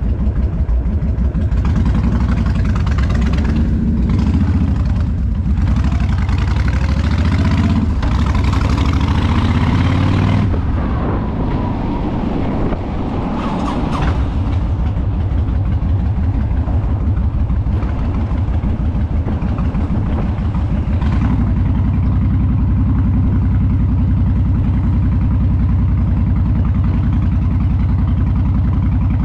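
Motorcycle engine running under way, heard from the bike itself. It is louder and mixed with a rushing noise for the first ten seconds, dips briefly around twelve seconds, and then settles into a steady low engine note.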